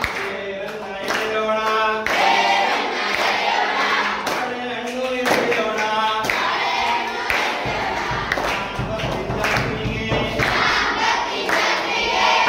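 A group of schoolchildren singing a Kannada action song together in short phrases, with an adult leading.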